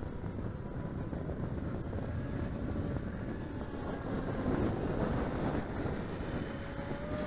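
Wind rumbling on the microphone, with the thin, steady drone of an RC model plane's motor and propeller flying overhead; the tone rises slightly near the end.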